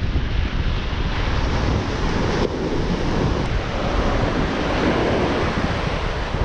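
Ocean surf washing and breaking on a sandy beach, a steady rushing noise, with wind buffeting the microphone as a low rumble.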